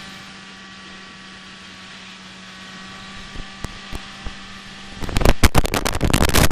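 Suzuki GSX-R 750 SRAD's inline-four engine cruising at steady revs, a constant hum under wind noise. About five seconds in, loud wind buffeting crackles over the microphone.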